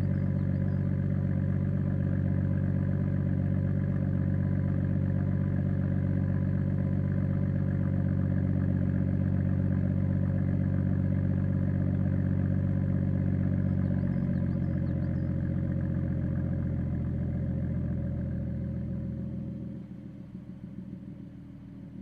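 BMW 440i's turbocharged inline-six running at a steady idle through its M Performance sport exhaust, giving a deep, even drone. About fourteen seconds in its note settles a little lower, then the sound fades and drops off sharply near the end.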